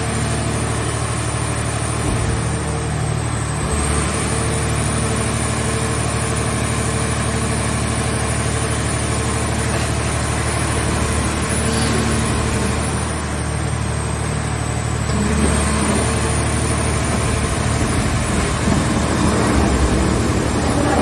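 Engine of a car-body baling machine running steadily. A high-pitched whine sags and recovers twice, and the machine gets a little louder in the last few seconds.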